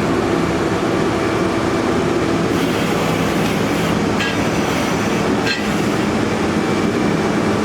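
Borehole drilling rig's engine running steadily at a constant pitch, with a couple of sharp knocks about four and five and a half seconds in as the crew handles the drill rods and casing.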